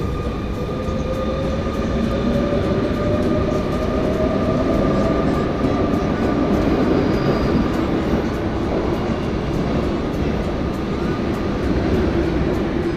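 RER commuter train running, a steady rumble with a whine that rises slowly in pitch during the first few seconds as the train picks up speed.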